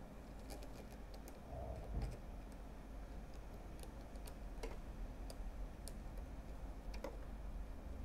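Faint, scattered small clicks and ticks of metal parts as the embroidery foot is fitted to a Janome Skyline S9's presser bar and its side screw is tightened with a small screwdriver, with a light knock about two seconds in. A low steady hum runs underneath.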